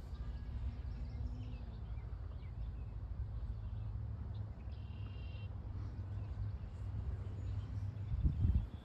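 Wind buffeting the microphone: a low, fluttering rumble, with a stronger gust about eight seconds in.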